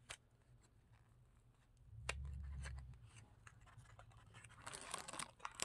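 Faint clicks and rustling, with a brief low rumble lasting about a second, two seconds in.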